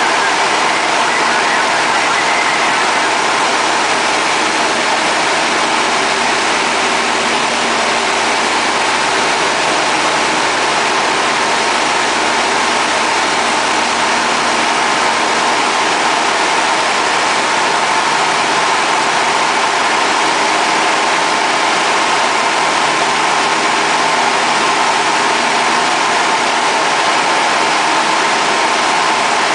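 Single-engine light aircraft's piston engine and propeller running steadily at cruise, heard from inside the cockpit.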